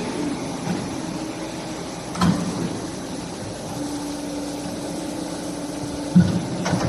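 CNC pipe bending machine running through a bending cycle: a steady mechanical hum that grows into a stronger steady tone for a couple of seconds, with two sharp clunks, about two seconds in and near the end.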